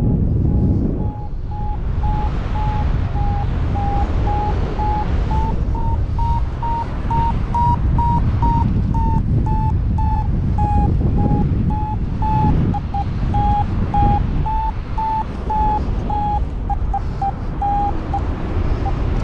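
Paragliding variometer beeping, about two short beeps a second, the pitch rising a little toward the middle and then easing back: its climb tone, the sign that the wing is climbing in lift. Wind buffeting the microphone runs underneath.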